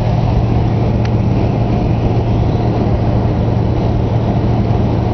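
Steady road and engine noise heard from inside a moving car's cabin, a constant low drone, with one faint click about a second in.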